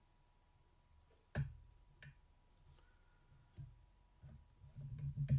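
Lock pick and tension wrench clicking in a Master Lock Pro Series 6835 padlock during single-pin picking: a few separate sharp clicks, then a quicker run of clicks and knocks that grows louder near the end as the lock comes open.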